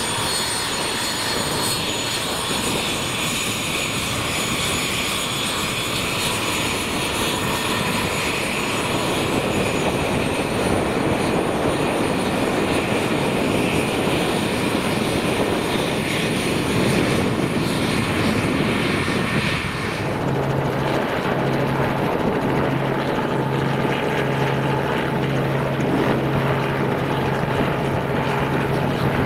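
Dassault Falcon business trijet taxiing, its turbofan engines running with a steady high whine. About twenty seconds in it gives way to a Robinson R44 helicopter hovering low, its rotor and piston engine running with a steady low pulsing hum.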